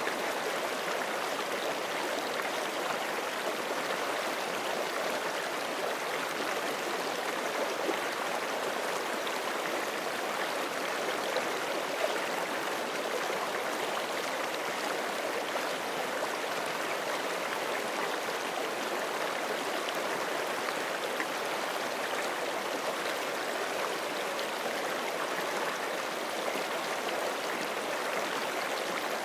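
Forest creek flowing over rocks: a steady rush of running water that neither rises nor falls.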